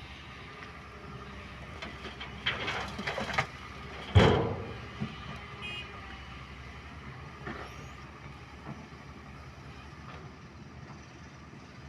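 Excavator at work loading a tipper truck: its diesel engine runs steadily, with a short rattle of clanks about two and a half seconds in and then one heavy thump about four seconds in that dies away, followed by a few lighter knocks.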